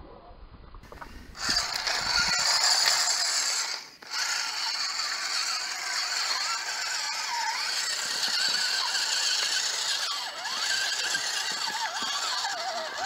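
Electric motor and geared drivetrain of a 1/10-scale RC crawler whining as it is driven, the pitch wavering up and down with the throttle, with some rattling. The whine starts about a second and a half in and breaks off briefly about four seconds in.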